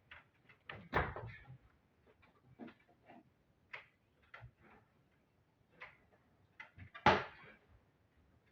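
Scattered light knocks, taps and clicks of hardware being handled and fitted, with two louder knocks, one about a second in and one near the end.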